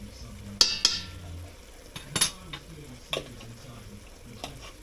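A spoon stirring spices in a frying pan, knocking against the pan: one loud metallic clink that rings on briefly about half a second in, then a few lighter knocks.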